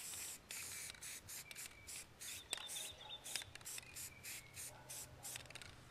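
Krylon aerosol spray-paint can giving a quick series of short hissing sprays onto a deer skull, the first one the longest.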